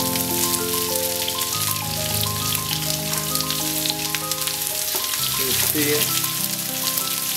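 Sliced shallots sizzling and crackling as they fry in hot coconut oil with popped black mustard seeds, stirred with a spatula near the end. Background music with sustained, stepping notes plays over it.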